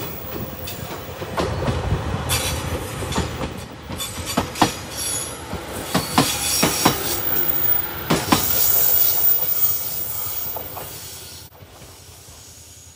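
Electric passenger train passing on the Nippo Main Line: a running rumble with wheels clicking over rail joints. It builds to its loudest about eight to nine seconds in, then fades as the train moves away.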